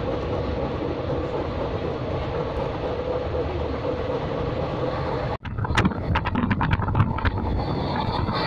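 Steady running noise of a moving train heard from inside, through an open window. About five and a half seconds in, the sound breaks off sharply and gives way to a quick run of irregular clacks and knocks, then steady running again.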